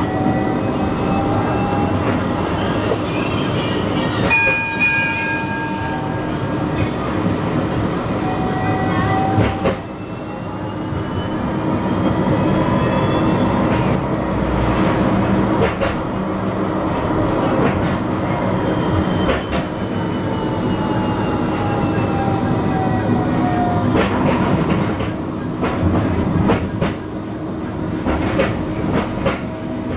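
A Bombardier Flexity 2 tram running, heard from inside the car. Its traction motors whine, rising in pitch as it picks up speed about a third of the way in and falling as it slows in the second half. Near the end the wheels click over rail joints and pointwork.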